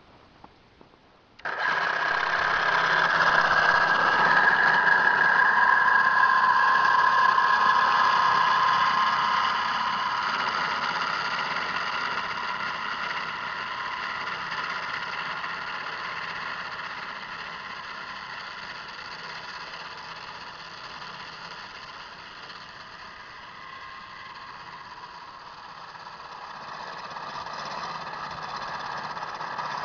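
Electric snow thrower motor switched on about a second and a half in, then running with a steady high whine. It is loudest for the first several seconds, fades gradually, and grows louder again near the end.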